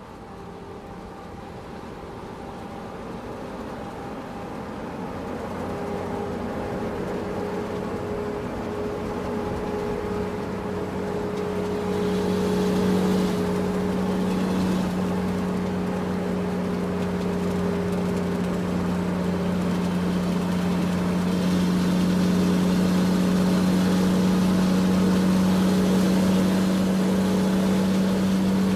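Excavator's diesel engine running at a steady pitch, growing steadily louder over the first half and then holding.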